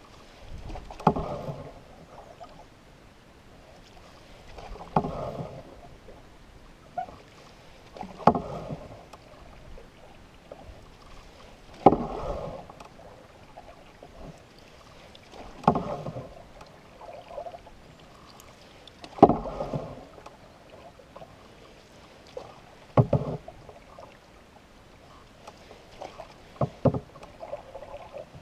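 Canoe paddle strokes on calm water, about one every three and a half seconds. Each stroke starts with a sharp tap and is followed by a short rush and swirl of water from the blade.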